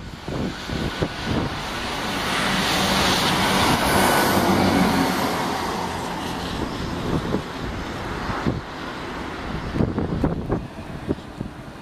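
Electric tram passing on its overhead-powered line, its running noise swelling to a peak about four seconds in and then fading as it moves away. Gusts of wind buffet the microphone.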